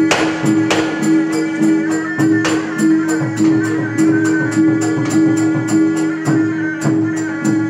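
Traditional Malay wayang kulit ensemble playing instrumental music: a sustained melody that steps in pitch over a held low tone, driven by a steady beat of small cymbals and drums at about four strokes a second, with heavier strikes near the start.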